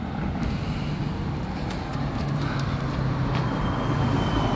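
Street traffic, with a vehicle engine running close by as a steady low hum and a few faint clicks.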